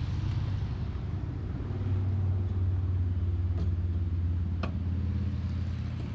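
A steady low engine hum, like a motor idling, with a few light metal clicks partway through as the aluminium sluice box is handled.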